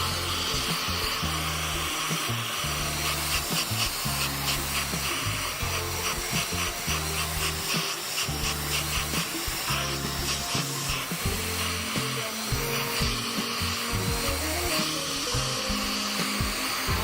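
Background music with a stepping bass line over a steady rushing, blowing noise like a hair dryer or heat gun. There is a run of quick fine scraping strokes a few seconds in.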